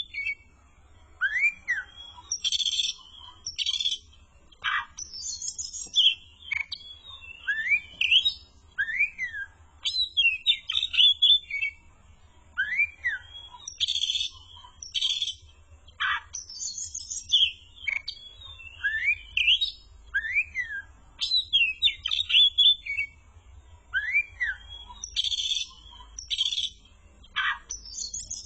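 Oriental magpie-robin (kacer) singing loudly in varied phrases: arched whistles that rise and fall, quick upward-sweeping notes and bursts of high chirping. The same run of phrases comes round again about every five and a half seconds.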